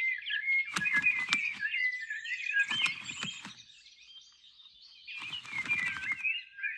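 Songbird singing in fast, varied warbling chirps: one phrase, a brief pause about four seconds in, then the song resumes.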